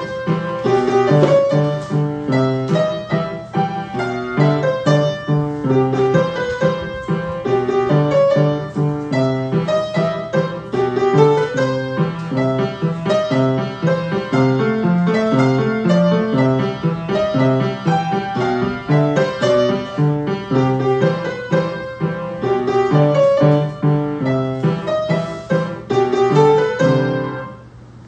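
Grand piano played solo: a simple piece with a steady repeated bass pattern under a melody in the middle register. The playing stops shortly before the end.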